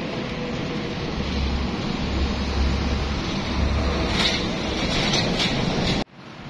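City street traffic noise with wind buffeting the microphone in low rumbling gusts, cutting off suddenly near the end.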